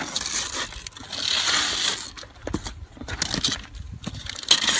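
Wrapping paper being torn off a gift box: a long rip over the first two seconds, then several shorter tears, the loudest just before the end.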